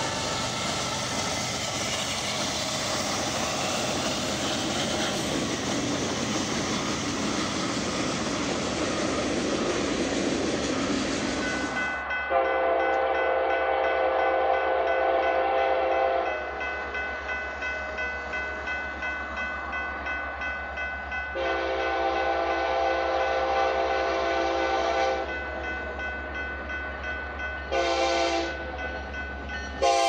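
A Union Pacific freight train passing close by, a steady rush of wheel and rail noise. After a cut, a BNSF diesel locomotive's multi-chime air horn sounds two long blasts and one short blast, the opening of the grade-crossing signal, over a low engine rumble as the train approaches.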